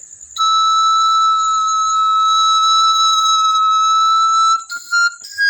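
Pan flute's high pipes being blown: one long held high note for about four seconds, then a few short notes on neighbouring pipes near the end. A cricket chirps steadily in the background.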